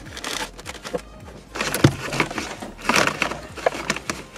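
A cable being pulled and fed behind plastic dashboard trim: irregular rustling and scraping of the wire against plastic, with light clicks and knocks.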